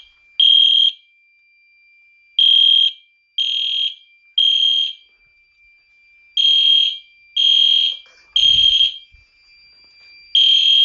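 Fire alarm horns sounding in the temporal-3 evacuation pattern: three half-second blasts a second apart, then a pause, repeating. A faint steady high tone runs underneath.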